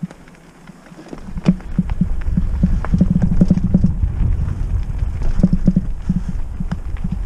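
Mountain bike riding over rough trail: quick, uneven knocking and rattling from the bike, joined about a second in by a low rumble of tyre and wind noise.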